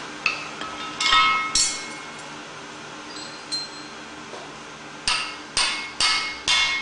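Blacksmith's hammer striking glowing steel on an anvil, with the anvil ringing after each blow. There are three strikes in the first second and a half, a pause with one light tick, then four quick blows about half a second apart near the end.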